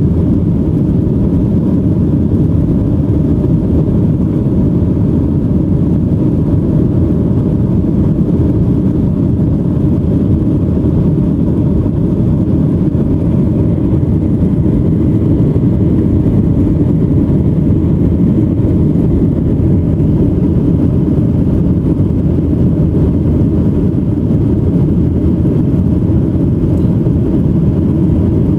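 Steady cabin noise inside a Boeing 737-900 in flight, heard from a window seat over the wing: the even, low-pitched rumble of its CFM56-7B turbofan engines and the air rushing past the fuselage.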